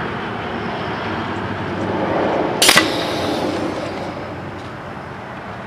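A single sharp shot about two and a half seconds in: a homemade pneumatic launcher, a full-auto paintball gun converted to fire AA batteries on 80 PSI of air, firing a battery. It sits over steady outdoor background noise.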